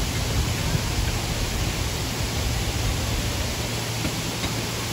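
Steady rushing background noise with a low rumble, even throughout and without distinct events.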